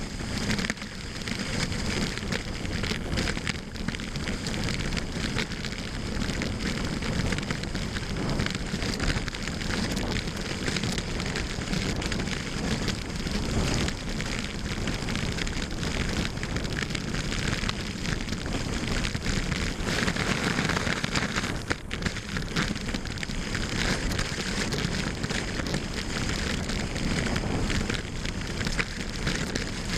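Skis running fast over snow: a steady crackling hiss of the bases scraping and rattling on the snow surface, with a brief dip about 22 seconds in.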